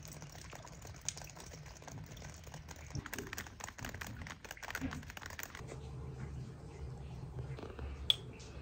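Light rain pattering on garden plants, a fast, irregular ticking of drops. It gives way to a low steady hum. Near the end a spoon clinks once against a small glass jar.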